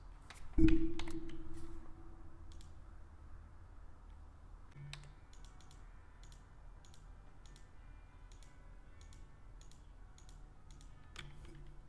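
Scattered clicks of a computer mouse and keyboard, coming more often in the second half. About half a second in, a single loud thump with a short low ring that fades over about a second and a half.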